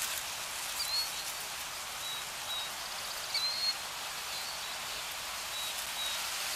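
Outdoor nature ambience: a steady rain-like hiss with birds chirping now and then on top, short whistled chirps several times through.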